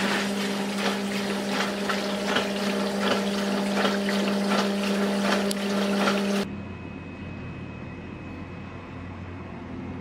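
Europace EDW 3050U portable dishwasher's wash pump running, its water jets spraying and splashing inside the tub over a steady motor hum. About six and a half seconds in the spray stops suddenly, leaving a much quieter low hum.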